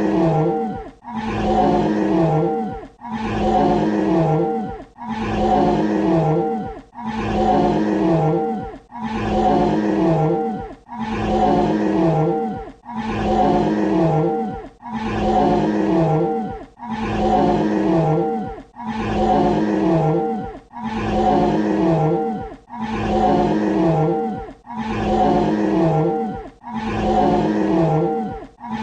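Dinosaur roar sound effect: the same roughly two-second roar repeated over and over, each roar dropping in pitch at its end before a short gap.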